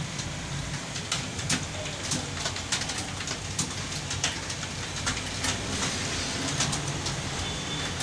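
Many computer keyboards clattering at once as a roomful of students types, a dense, irregular patter of key clicks over a steady low hum.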